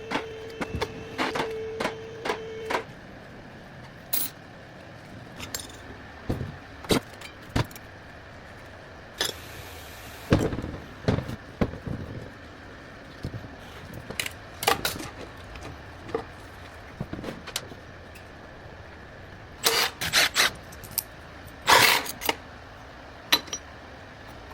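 Scattered metallic clinks and knocks of tools and parts being handled, with louder clusters near the end, over a faint steady hum. A steady tone stops about three seconds in, and there is a short hiss near the middle.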